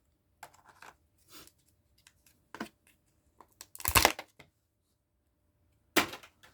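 A Kinder Joy egg's plastic-foil wrapper being handled, crinkled and torn open, in short rustles with a loud rip about four seconds in and another sharp tear near the end.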